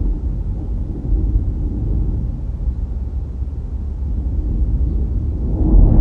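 Low, steady rumble of a car driving along the road: road and wind noise, growing louder near the end.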